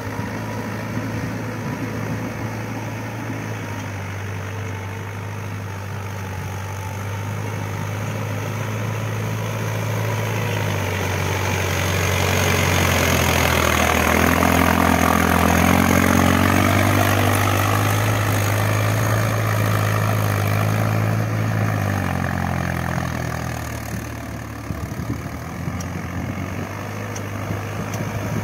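Mahindra Yuvo 585 DI 4WD tractor's four-cylinder diesel engine running steadily under load while pulling a cultivator through wet paddy mud (puddling). It grows louder as the tractor passes close about halfway through, then fades as it moves away.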